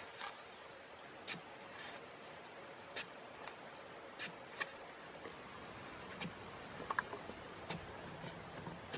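Scattered light clicks and snaps at irregular intervals, about one a second, over a faint steady hiss.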